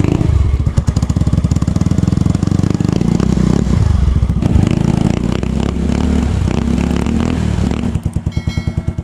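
Yamaha Mio Sporty scooter's single-cylinder four-stroke engine revving through a newly fitted ORBR V2 open aftermarket exhaust. The revs rise and fall several times, then drop back to a slower, quieter idle near the end.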